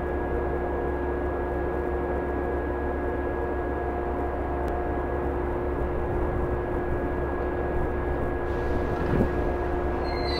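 A JR 113 series electric train idling at a platform: its onboard equipment gives a steady electric hum with several fixed tones over a low drone, and there is a faint thump about nine seconds in.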